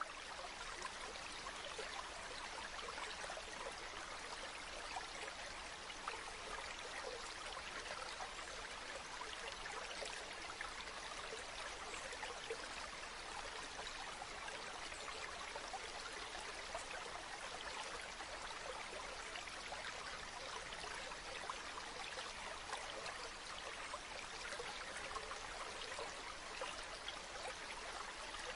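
Running water of a stream, a steady, even rush with fine splashing flicker.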